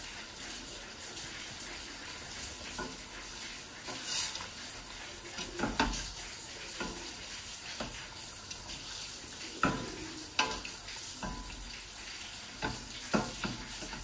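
A wooden spoon stirring chicken pieces in sauce in a stainless steel pot, with several sharp, irregular knocks and scrapes against the pot, over a steady low sizzle of the sauce frying.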